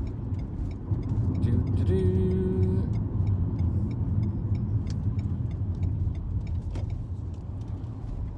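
Car cabin noise from the driver's seat: engine and tyre rumble as the car slows and turns off the road onto a petrol station forecourt. A brief steady tone sounds about two seconds in, and faint rapid ticking is heard at first.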